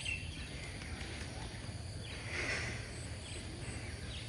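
Outdoor morning ambience: scattered faint bird calls and insects over a low steady rumble, with one louder high call about two seconds in.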